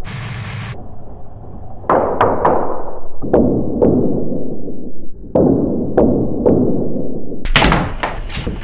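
Spinning Lego rotor blades whirring, with sharp plastic clacks as the blades strike dropped Lego minifigures and fling them off: about a dozen hits in small groups, the densest flurry near the end.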